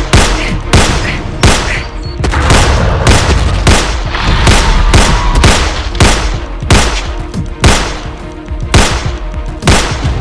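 Gunshots fired in a rapid, uneven series, one every half second or so, over a dramatic music score.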